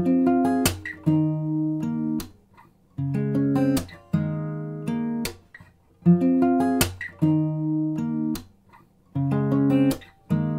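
Background music: plucked chords played in short phrases of about a second, separated by brief pauses, in a repeating pattern.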